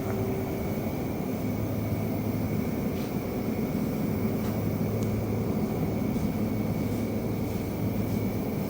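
Steady mechanical hum of supermarket refrigeration and ventilation, with a faint high whine in it.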